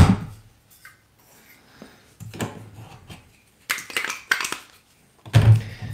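Handling noises at an espresso machine: a sharp metal knock right at the start, then scattered clatter and a cloth rubbing over the drip tray.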